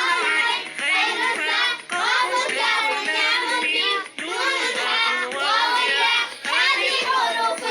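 A child singing in short phrases of about a second each, over music.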